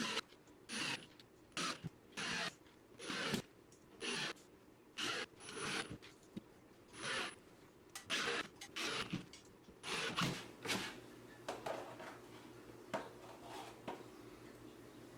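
Repeated rough scraping strokes of a hand tool working drywall, about one a second, tailing off into fainter scattered scrapes about eleven seconds in.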